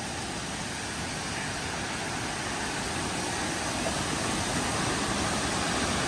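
Waterfall's steady rush of falling water, a constant even hiss that grows gradually louder.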